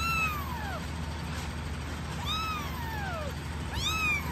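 Young kitten mewing, three drawn-out cries about a second and a half apart, each rising and then falling in pitch, as it is held on its back and its belly is rubbed with a tissue to make it pee.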